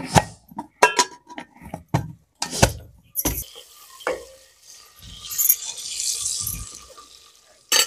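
A metal ladle knocking and scraping against a metal cooking pot in a quick run of clanks as onions are stirred in oil. About halfway through, the frying onions sizzle for a couple of seconds.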